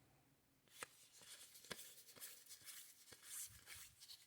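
Faint handling of baseball trading cards: cards slid and flipped one by one off a stack, soft papery rustling with a few sharp ticks, the clearest about a second in and near the middle.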